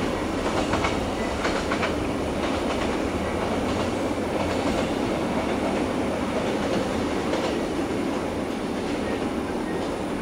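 Wheels of a long babaranjang coal train's open wagons rolling over the rails: a steady rumble with scattered clicks at the rail joints, easing off slightly toward the end as the last wagons move away.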